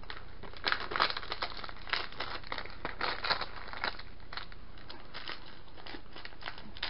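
Thin plastic packaging crinkling and rustling as it is handled, in irregular bursts that are densest over the first four seconds and sparser after.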